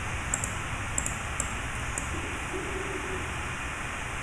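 A few soft computer-mouse clicks, two close together and then three spaced about half a second apart, over a steady background hiss.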